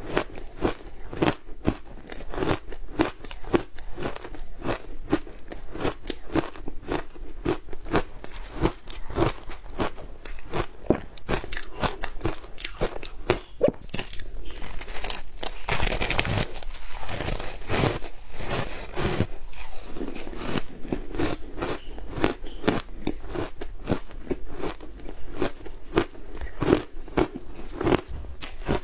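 Frozen shaved ice dusted with matcha and milk powder being bitten and chewed close to the microphone: a continuous run of sharp, crisp crunches, several a second, growing denser for a moment about halfway through.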